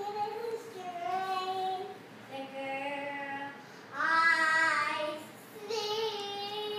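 A three-year-old girl singing a made-up song of her own, unaccompanied, in drawn-out notes across about five short phrases with brief pauses between them; the loudest, highest phrase comes about four seconds in.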